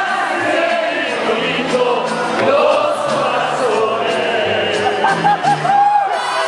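Mariachi band playing live while several singers sing together into microphones, with a steady line of bass notes underneath.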